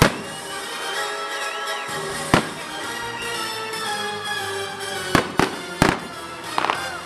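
Fireworks going off over music: a sharp bang at the start, another about two and a half seconds in, then a quick run of bangs around five to six seconds and crackling near the end.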